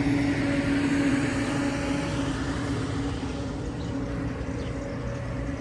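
A steady mechanical hum, with a swell of rushing noise over the first two seconds that then eases off.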